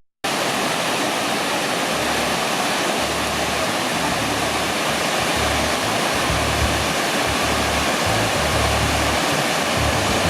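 Waterfall on the upper Urauchi River: a steady, dense rush of falling water that cuts in suddenly just after the start.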